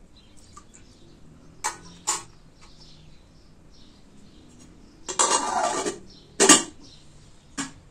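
Metal kitchenware being handled: two light clinks of a plate being set down, then a scrape of about a second as a steel pot and its lid are moved, a loud metallic clank of the lid, and one last light click near the end.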